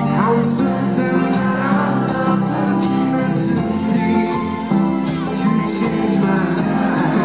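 Live pop duet: a man and a woman singing into microphones over a full band, with a steady beat.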